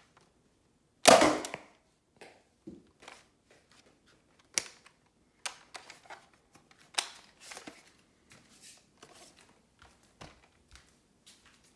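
Hard plastic clacks and clicks from handling a Nerf Rival Takedown pump-action blaster. One loud, sharp clack comes about a second in, then lighter scattered clicks and knocks follow as it is turned over and set down.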